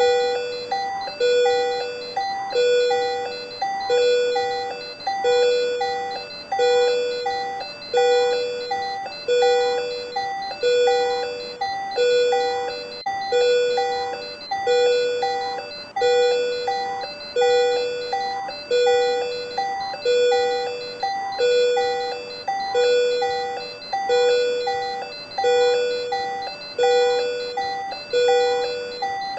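Patient monitor alarm for supraventricular tachycardia (SVT): a pitched multi-tone chime repeating evenly about once a second.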